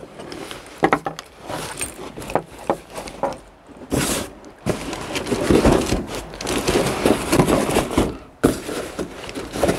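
Heavy canvas backpack rustling and crumpling as it is handled, with a cardboard box scraping and knocking against the fabric as it is pushed inside the bag.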